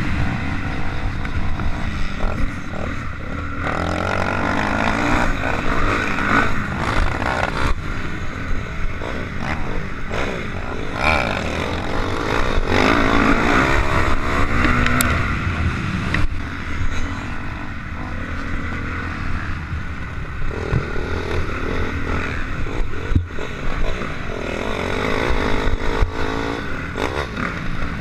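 Dirt bike engine revving up and down through the gears while riding a motocross track, heard close from the rider's helmet.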